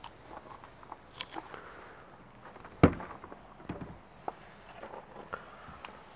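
Footsteps with a series of clicks and knocks as a Hobby caravan's entry door is unlatched and swung open. One sharp, loud clack comes just under three seconds in.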